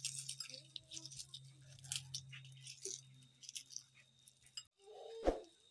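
Fried dried red chillies crackling as they are crumbled by hand on a small ceramic plate, with light clinks against the plate; a sharp click near the end.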